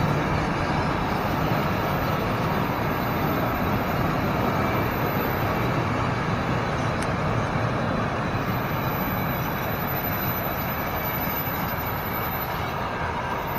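Container freight train rolling past on the track: a steady rumble and clatter of flat-wagon wheels on the rails, easing slightly near the end as the train draws away.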